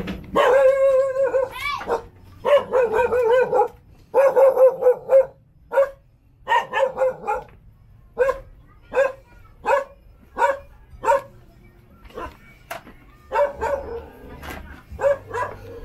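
A dog barking repeatedly. It opens with three long, wavering calls, then settles into a string of short barks about one every half second to a second, which thin out near the end.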